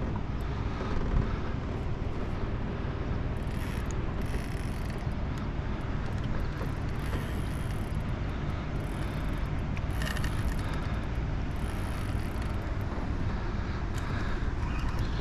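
Small boat's petrol outboard motor running steadily at low speed, with wind buffeting the microphone.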